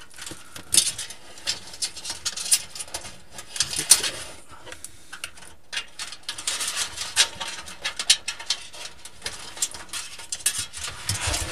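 Flat black front-panel cables being pulled and fed through a computer case's cable-routing opening: irregular rustling and rubbing of cable against the case, with scattered light clicks and knocks.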